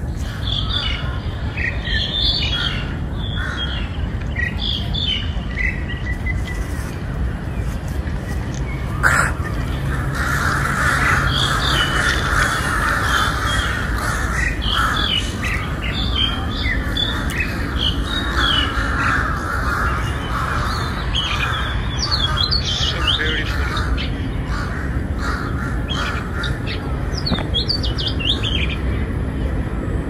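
A flock of crows cawing continuously, a dense overlapping chorus, with many short higher bird chirps over it. A steady low rumble sits underneath, and there is one sharp knock about nine seconds in.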